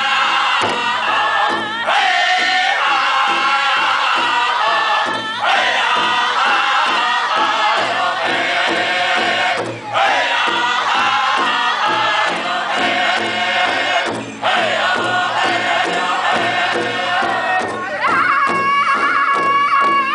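A Northern-style powwow drum group sings together in high voices over a steady, even beat struck in unison on a large powwow drum, with short breaks for breath between phrases.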